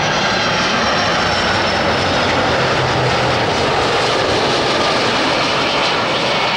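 Jet airliner engines on approach, a loud steady rush of noise with faint high whining tones over it.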